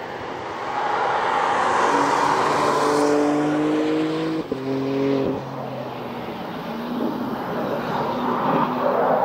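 2021 BMW M4 Coupe prototype's twin-turbo inline-six under hard acceleration on a race track, its pitch rising as it passes, with a quick upshift about four and a half seconds in, after which it pulls on at lower revs.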